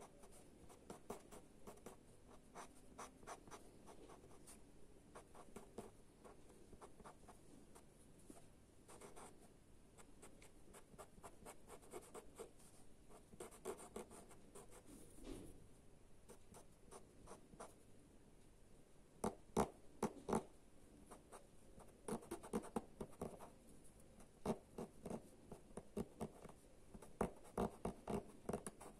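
Small paper blending stump rubbing pastel into Pastelmat, a run of short scratchy strokes. The strokes come louder and quicker in the last third.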